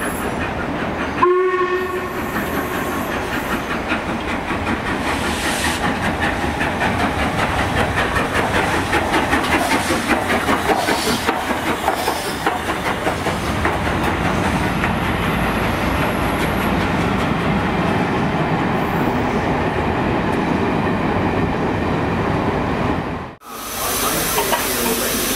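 LMS Royal Scot class 4-6-0 steam locomotive 46100 giving a short whistle blast about a second in, then the clank of its motion and wheels as it rolls past close by. Near the end, after a sudden break, steam hissing from the engine.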